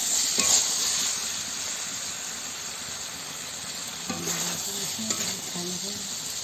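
Chicken pieces in spice paste sizzling steadily in a kadai while a spatula stirs them. A few short scrapes of the spatula against the pan come about half a second in and again around four to five seconds in.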